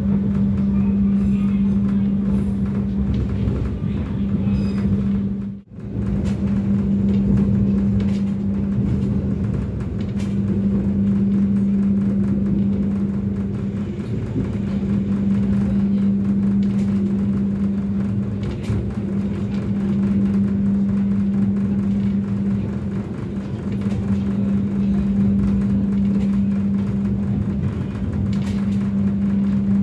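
Passenger train running, heard from inside the coach: a steady low rumble from the running gear under a constant hum, with a few light clicks near the start. The sound drops out for a moment about five and a half seconds in, then carries on unchanged.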